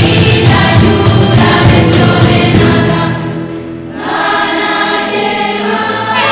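Background music: a choir singing over a rhythmic accompaniment. About three seconds in the beat drops away and the voices hold long notes.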